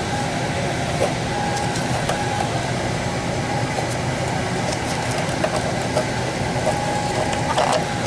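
Steady mechanical hum from a running machine, with a few faint clicks.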